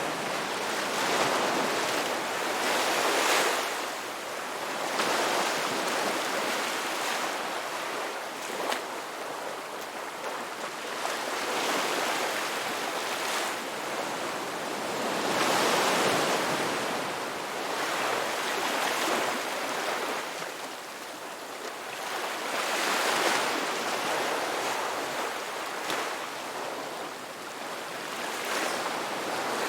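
Ocean waves breaking and washing up on a beach, the surf swelling and fading every few seconds.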